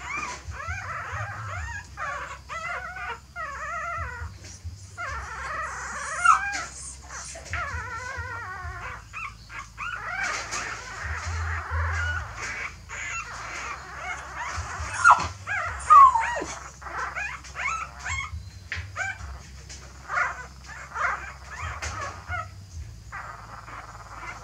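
Newborn puppies whimpering and squealing: many short, high cries that bend up and down in quick runs, with two louder, sharper yelps a little past the middle.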